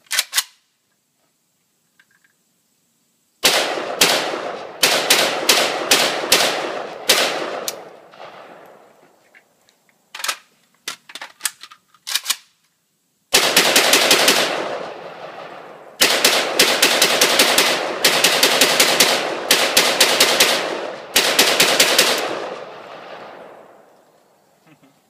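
Polish AKMS rifle (7.62×39mm) firing: a single shot at the start, a string of shots a few seconds in, a few scattered single shots, then two longer, faster strings of shots. Each string trails off in echo.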